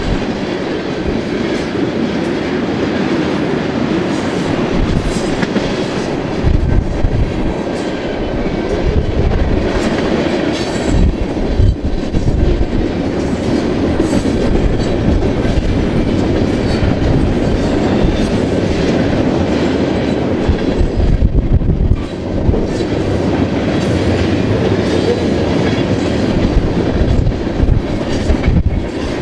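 A BNSF freight train rolling past, its cars' wheels clacking over the rail joints with a steady loud rumble.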